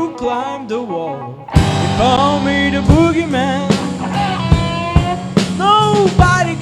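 Blues band playing live: a lead line of bending, sliding notes over bass, with the full band and drums coming in about a second and a half in.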